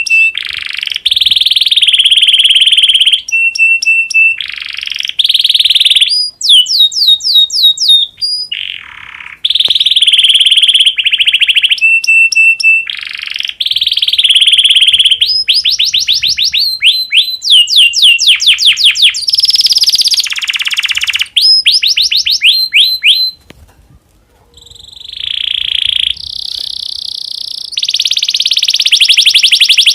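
Domestic canary in breeding condition singing a long, loud song of rolling trills and rapid repeated whistled notes, with one short break about three-quarters of the way through.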